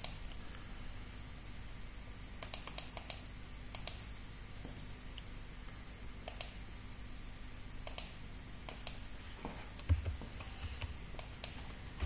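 Scattered clicks of a computer keyboard and mouse, a few at a time with pauses between, over a faint steady hum. There is a soft low bump about ten seconds in.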